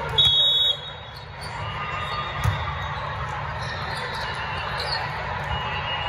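Volleyball referee's whistle, one short high blast about half a second long just after the start, the usual signal to serve. Then the steady noise of a big hall full of voices, with one sharp hit of a volleyball about two and a half seconds in.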